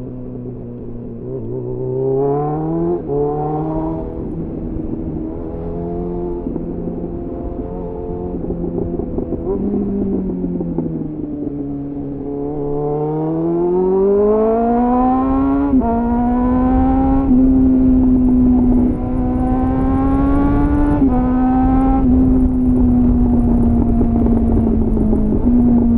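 2001 Suzuki GSF 600 Bandit's inline-four through a clone SC-Project CR-T exhaust with a homemade dB-killer, heard from onboard. It revs up with an upshift a few seconds in, eases off, then pulls up again through another upshift about halfway, and holds a steady higher pitch with a couple of small dips near the end, with wind rushing over the microphone as the speed builds.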